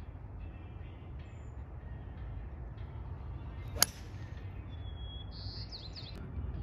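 Golf iron striking a teed ball: one sharp click about four seconds in, over a steady low rumble.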